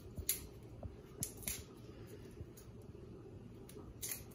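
A few short clicks and scrapes of kitchen handling during food preparation, over a low steady hum.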